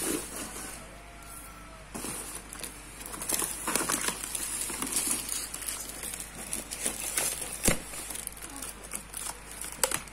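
A cardboard box is opened and rummaged by hand: flaps and packaging rustle and crinkle as items are shifted inside. There is a sharp knock about three quarters of the way through and another near the end.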